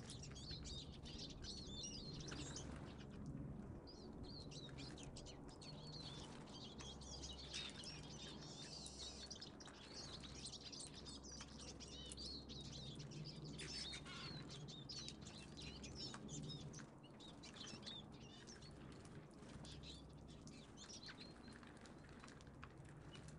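A mixed flock of small finches and tits at a seed feeder, chirping and calling in many short, high notes that overlap throughout, over a faint low steady hum.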